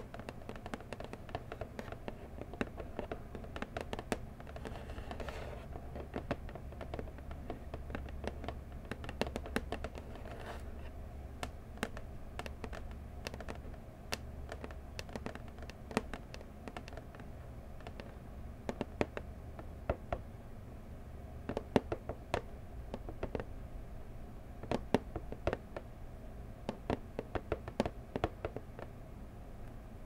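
Long fingernails scratching slowly and tapping on a cardboard box, with many sharp, irregular taps.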